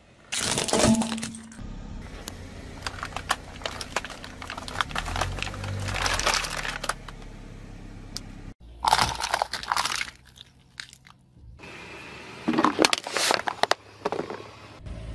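A car tyre rolling over and crushing plastic toys and containers: plastic cracking and crunching in several bursts, with a long stretch of crackling in the middle over a low rumble.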